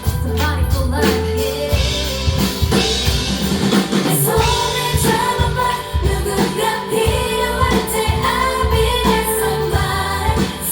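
Female vocalists singing a pop song live over amplified accompaniment with a steady bass line.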